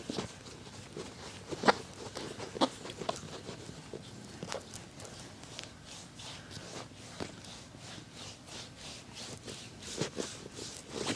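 Hands working during a massage: irregular sharp taps and pats over soft rubbing, the loudest tap a couple of seconds in, and a quicker run of light ticks near the end.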